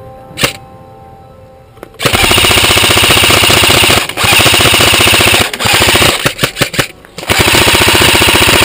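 Airsoft gun firing long full-auto bursts close to the microphone, a fast even rattle broken by a few short pauses; one single sharp snap about half a second in.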